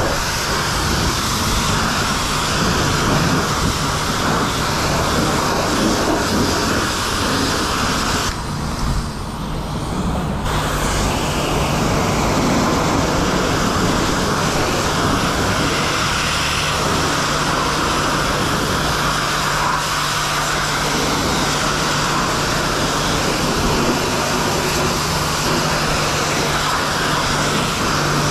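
High-pressure car wash wand spraying water against a truck's tyre and bodywork: a steady hissing spray with a low hum underneath. The spray eases for about two seconds roughly eight seconds in, then carries on.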